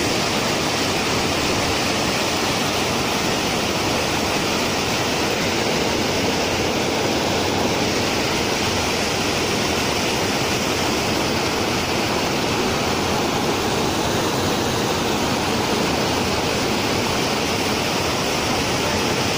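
Water spilling over a low weir and rushing through the shallow channel below, a steady, even rush.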